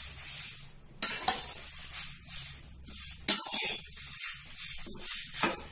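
Metal slotted spoon stirring dried Brahmi (vallarai) leaves in a metal kadai: dry leaves rustling and the spoon scraping the pan in uneven strokes. The stove is off, and the leaves are being crisped in the pan's leftover heat before grinding.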